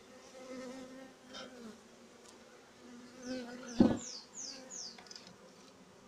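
Honeybees of a newly caught swarm buzzing around a wooden hive box, a steady low hum that swells and fades, with one sharp knock a little past the middle.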